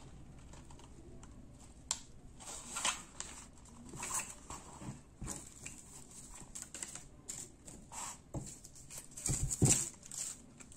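Handling of packaging: a small cardboard accessory box and its plastic wrappings crinkle and rustle, with irregular soft knocks as items are pulled out by hand. The crinkling is loudest in a short flurry near the end.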